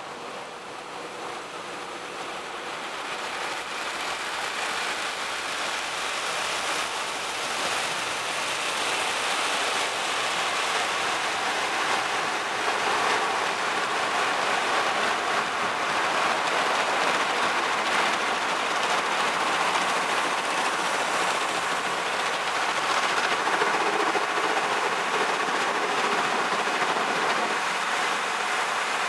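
Automatic car wash heard from inside the car: a steady rushing and drumming of water spray and wash machinery on the car's body and windshield. It grows louder over the first ten seconds or so, then holds.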